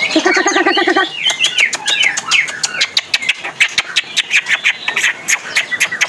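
Caged green leafbirds (cucak hijau) calling, with sweeping chirps and whistles. From about a second in, a fast run of sharp ticking notes comes in. A low pulsing sound fills the first second.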